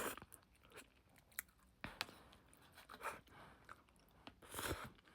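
A person eating instant pot noodles close to the microphone: chewing and wet mouth sounds in a few short bursts with small clicks between them, the loudest near the end.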